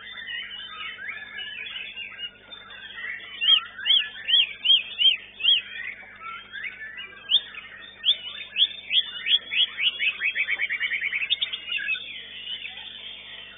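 White-rumped shama (murai batu) song: a stream of varied rapid chirps and whistled phrases. About three and a half seconds in comes a run of five arched whistles, and around ten seconds in a fast, even trill.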